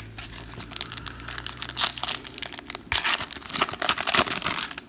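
Foil trading-card pack wrappers being torn open and crinkled by hand: a dense, crackling rustle that grows louder past the halfway point.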